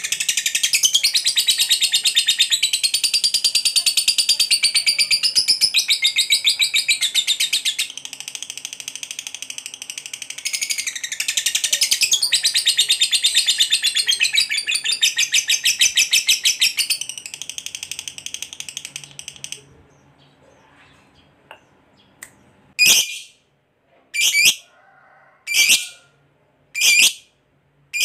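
Fischer's lovebird giving a long 'ngekek' chatter: a very fast, unbroken run of high notes lasting nearly twenty seconds, easing briefly partway through. After a short pause it gives a string of short, sharp single calls about a second and a quarter apart.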